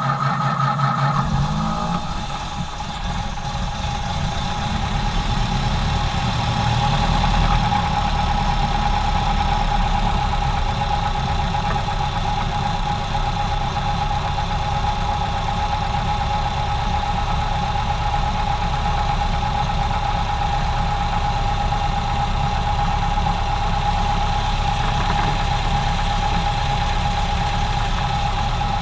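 Ford Model A four-cylinder flathead engine running roughly with steady misfires, popping in the exhaust. This is typical of a mixture running lean from a clogged fuel line.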